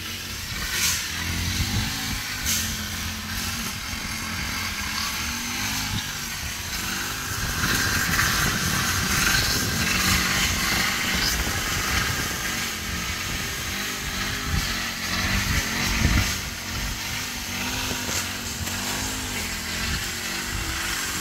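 Brush cutter's small engine running, its pitch rising and falling as it cuts grass, loudest through the middle stretch.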